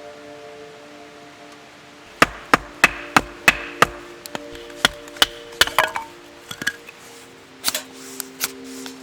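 Firewood being chopped: a quick run of sharp wooden strikes, about three a second, starting a couple of seconds in, then slower, scattered knocks. Soft background music plays underneath.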